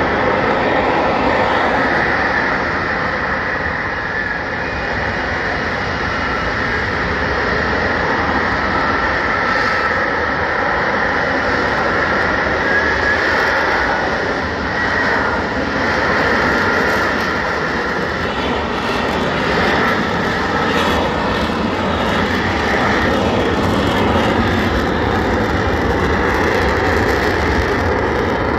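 F-35B jet hovering on its engine and lift fan: a steady, loud jet roar with a wavering whine on top.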